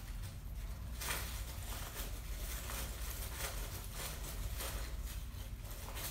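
Folded paper slips rustling as they are handled and stirred in a cloth baseball cap: light, irregular crinkling from about a second in.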